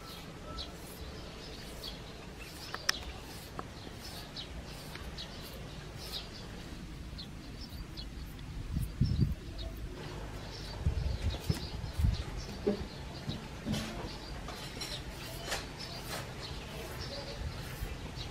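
Birds chirping in the background over the light scraping of a carrot being shredded into strips with a hand shredder. A few loud low thuds come around the middle.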